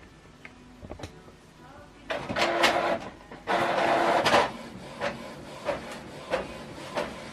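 Canon PIXMA TS7451 inkjet printer starting a print job: a few small clicks, then two loud bursts of its feed mechanism whirring about two and three and a half seconds in, then a regular rhythm of short strokes, about one every two-thirds of a second, as the print head shuttles across the page.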